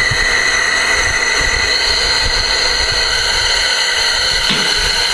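Compressed air at about 110 PSI hissing steadily through a hydraulic control valve into the bucket cylinders of a homemade backhoe as the bucket is driven out. The hiss shifts higher about two seconds in and changes again near the end as the valve is worked.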